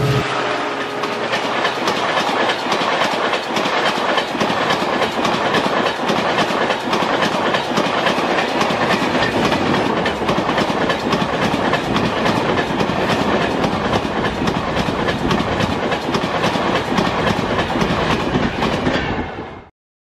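Diesel-hauled express train passing close at speed: the locomotive's horn stops right at the start, then a long rake of LHB passenger coaches rushes by with a rapid clickety-clack of wheels over the rail joints. The sound cuts off abruptly shortly before the end.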